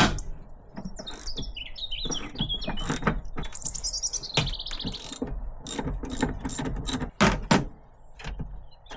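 A small songbird singing outside, twittering phrases and then a descending trill, over a run of sharp clicks and knocks from hand tools working on the vehicle. The loudest knocks come right at the start and about seven seconds in.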